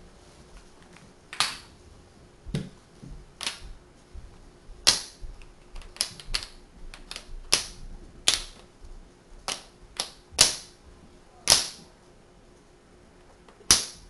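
Tegu magnetic hardwood blocks snapping together as each one is set into place, a sharp wooden click-clack about fifteen times at irregular spacing, some louder than others.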